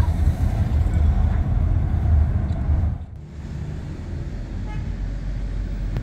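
Road and engine noise inside a moving Kia Carnival minivan: a steady low rumble. About halfway through it drops to a quieter, steady rumble.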